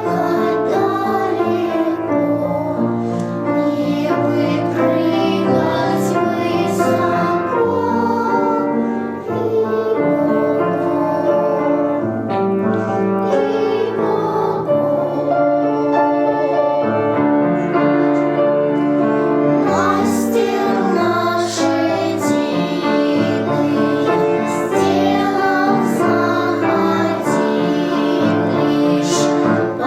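A song sung with piano accompaniment, at an even level throughout.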